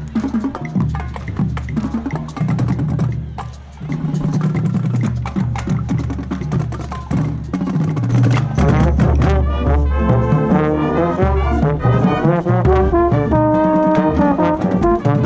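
Marching band playing: quick drum and percussion strikes, then the brass section comes in with loud held chords about halfway through.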